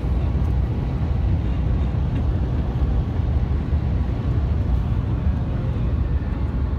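Steady road and wind noise inside a car's cabin at highway speed: an even low rumble with no breaks.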